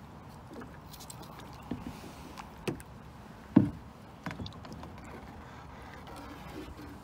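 A few hollow knocks and bumps on a small plastic kayak's hull, the loudest about halfway through, over a faint steady hiss.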